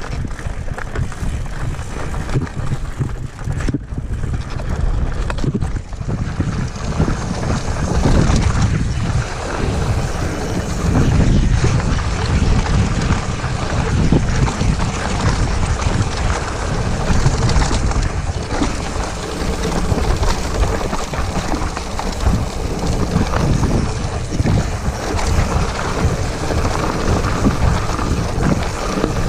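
Wind buffeting an action camera's microphone during a fast hardtail mountain bike descent, in uneven gusts, with the tyres rolling over dirt and rock and short knocks from the bike over bumps.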